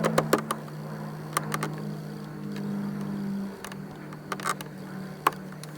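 Sharp little clicks and taps of a flathead screwdriver prying at the plastic covering of a Hyundai Sonata's interior door handle, over a steady low hum.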